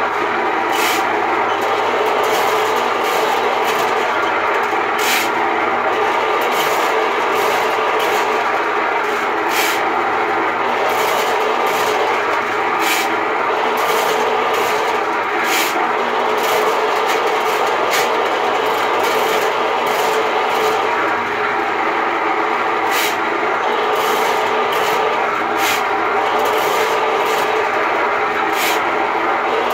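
Ridgid K-60 sectional sewer machine running steadily, its motor spinning 7/8-inch cable into a drain line, with irregular sharp clicks and clanks from the turning cable. The cable is working on a branch line suspected to be clogged with grease.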